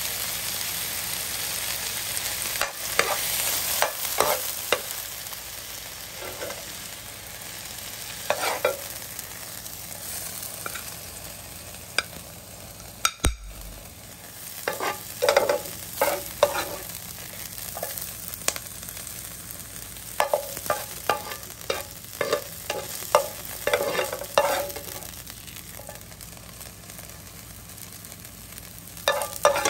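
Chinese kale sizzling in a hot frying pan while a metal spoon stirs and scrapes it, with bursts of scraping and clinking as the greens are scooped onto a plate. The sizzle gets quieter about halfway through.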